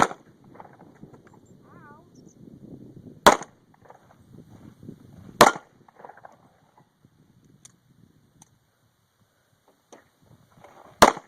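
Handgun fired four times at an uneven pace: one shot right at the start, two more about two seconds apart a few seconds in, and a last one near the end, each a sharp crack with a short echo.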